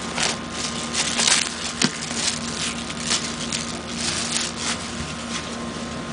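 Packaging being handled as items are lifted out of a box: irregular rustling and crinkling in bursts, over a steady faint hum.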